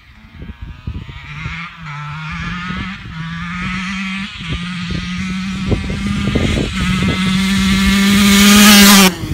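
2008 KTM 144 SX two-stroke dirt bike with an FMF Shorty silencer, ridden toward the microphone. Its engine note rises and steps with brief breaks and grows steadily louder, then peaks and drops off sharply near the end.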